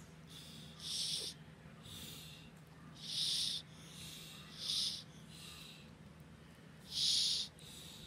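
Yellow-naped amazon parrot making short breathy hisses, four louder ones spaced a second or two apart with softer ones between, over a faint steady low hum.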